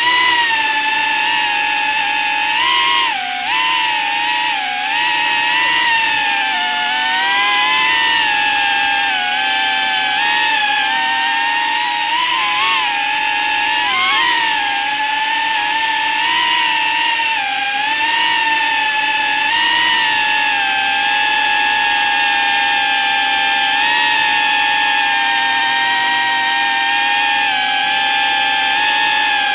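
FPV racing drone's brushless motors whining, pitch rising and falling with the throttle and dipping sharply a few times in the first half, then holding fairly steady.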